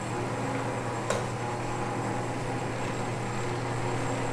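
Steady machine hum in a metal-lathe shop, with a single sharp metallic click about a second in as tool holders are handled on the lathe's quick-change tool post, changing over to a parting tool.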